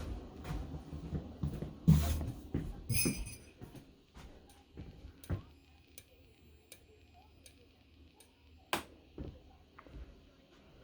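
Handling noise from a smoke detector being turned over and checked by hand: scattered clicks and knocks, the loudest about two seconds in and another near the end, with a brief high squeak about three seconds in.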